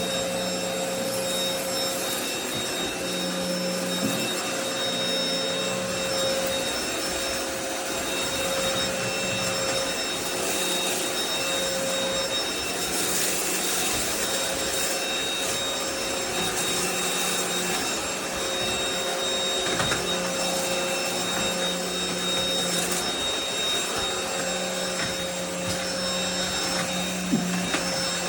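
NADALY cordless stick vacuum running steadily: a constant motor whine and airflow noise, with a couple of light clicks near the end.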